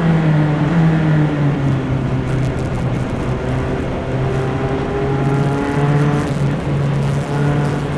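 Single-seater race car's engine heard onboard, close to the engine. Its pitch falls a little in the first half-second, then holds nearly steady at a high constant speed, with a few brief dips near the end.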